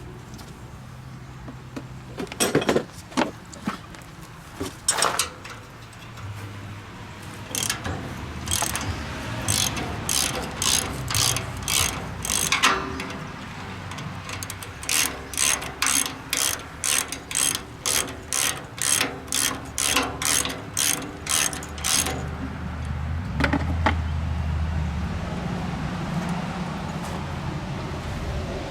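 Ratchet wrench clicking as bolts are backed out of a tractor's rear brake backing plate, in a few scattered strokes and then a steady run of about two strokes a second. A low steady hum comes up near the end.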